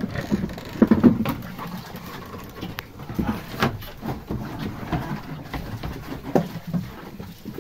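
A sow grunting and eating with her head in a plastic feed bucket, the bucket giving several sharp knocks.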